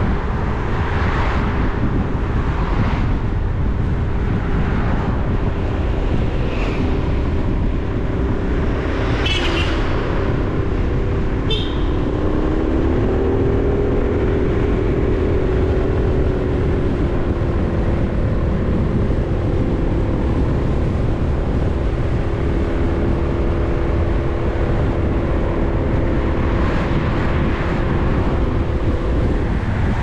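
A car on the move: steady engine drone with road and wind noise, the engine note shifting in pitch about twelve seconds in.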